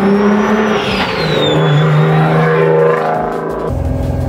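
1,300-horsepower Nissan Z pro drift car's engine running at low road speed, with a thin high whine that rises and then falls over it. About three and a half seconds in, the sound switches abruptly to a deeper, steady engine note.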